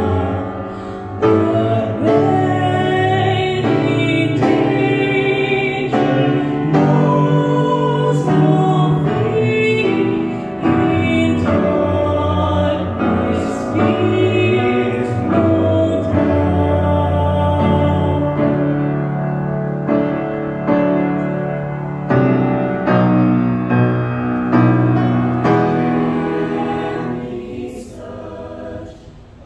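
Mixed choir singing a hymn with grand piano accompaniment, growing quieter for a moment near the end.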